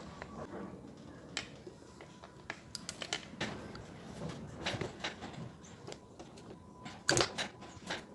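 A hot glue gun's plastic parts being handled: irregular small clicks and knocks, loudest in a quick cluster about seven seconds in.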